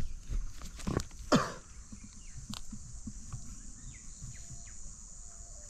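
Outdoor ambience of insects humming steadily at a high pitch and birds giving short falling chirps. A few sharp knocks come in the first second and a half, and one loud brief sound sweeps down in pitch about a second and a half in.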